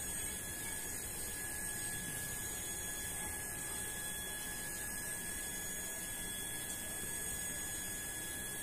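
Steady hiss and hum with a few high, steady whining tones, unchanging throughout.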